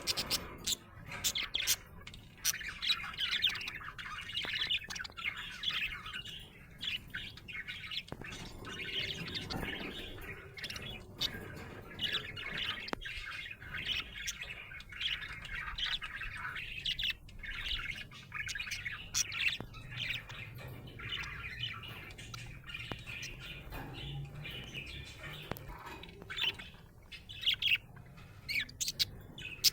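Budgerigar chirping and chattering almost without pause, a busy stream of short chirps with many sharp clicks mixed in: the happy chatter of a contented budgie.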